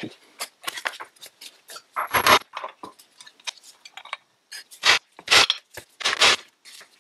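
Clunks, knocks and scrapes as a metal gear-shift housing and wooden blocks are handled and set down on a workbench: irregular sharp impacts, the loudest about two seconds in and three more between five and six seconds.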